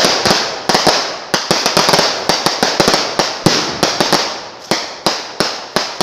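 A string of firecrackers going off in quick, irregular succession, several sharp bangs a second, slackening briefly about four and a half seconds in before picking up again.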